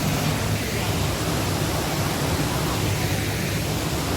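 Haew Suwat waterfall's falling water making a loud, steady rush of noise.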